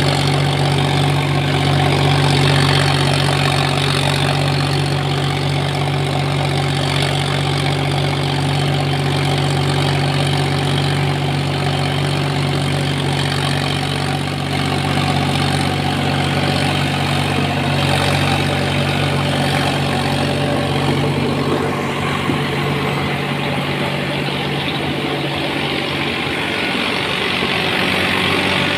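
Kartar 50 hp tractor's diesel engine running steadily under load, driving an 8-foot rotavator through the soil.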